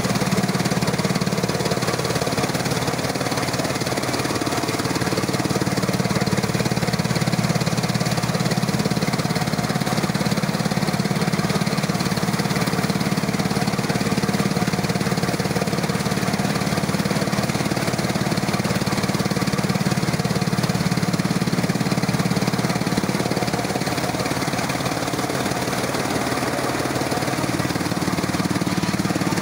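Bajrang threshing machine running steadily under engine power, a continuous mechanical drone with a faint regular low pulse, while crop stalks are fed into its chute for threshing.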